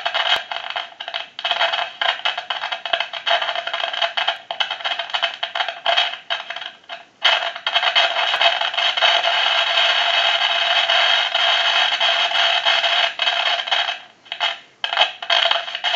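Loud crackling static and hiss from a grand desk telephone's receiver, heard through an amplified telephone pickup. It cuts in and out irregularly, runs steadier through the middle, and briefly drops out near the end. This is the phone's fault of constant crackling and noise on the line.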